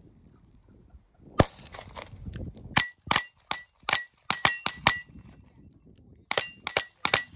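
Rifle fired in fast strings at steel plate targets, each sharp shot followed by the ring of struck steel: one shot, then a run of about eight in quick succession, a short pause, and another quick run near the end.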